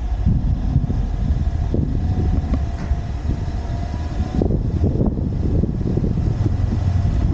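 A car driving slowly, picked up by a camera mounted outside the car: an uneven low rumble of road noise and wind buffeting on the microphone.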